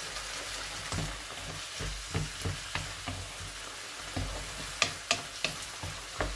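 Chopped vegetables sizzling in a frying pan while a wooden spatula stirs them, the steady sizzle broken by sharp knocks of the spatula against the pan, the loudest in a quick run in the second half.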